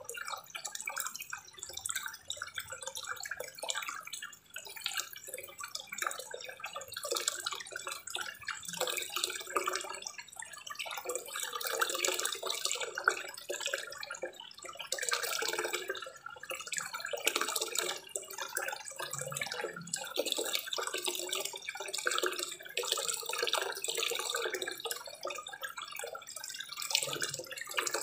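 Small waterfall spillway pouring into a koi pond, splashing and trickling onto the water surface.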